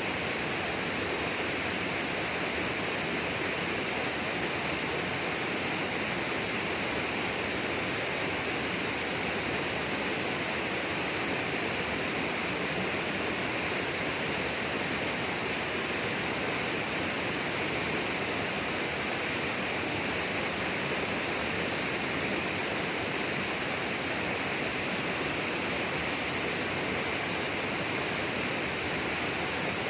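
Steady, unbroken rush of flowing water in a tropical rainforest, with a brighter high hiss on top.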